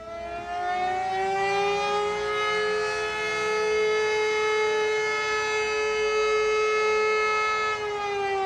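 Civil defense siren winding up, rising in pitch over the first second or two, holding a loud steady wail, then winding down and falling in pitch near the end.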